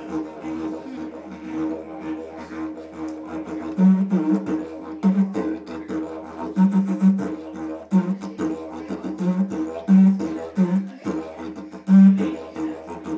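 Didgeridoo played with a continuous low drone and a rhythmic pulse. From about four seconds in, louder accented notes punctuate it at irregular intervals.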